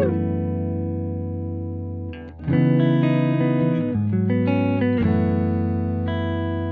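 Relaxing background music: sustained, ringing chords that change every second or so, with a short dip a little over two seconds in.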